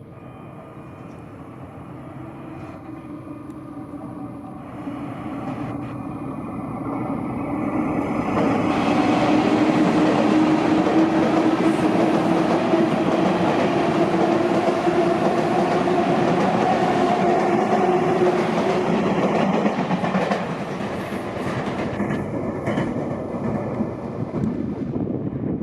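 Sotetsu 9000 series electric train running past, its sound building over about nine seconds. It stays loud for some ten seconds with a steady motor whine over rail clatter, then eases off near the end.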